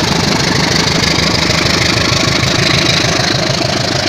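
A large engine running steadily with a fast, even pulse, cutting off suddenly at the end.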